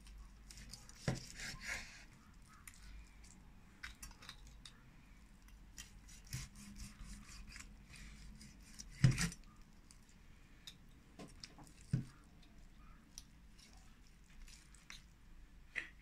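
Chef's knife and fork carving a roasted pork knuckle on a wooden cutting board: scattered knocks of the blade on the board, scrapes and small metal clicks as the meat is cut around the bone. The loudest knock comes about nine seconds in.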